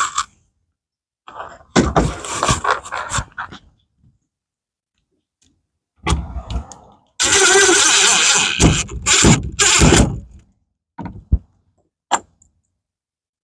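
Scraping and knocking from a screen door and its hardware being worked, in two longer noisy stretches, then a few sharp clicks near the end.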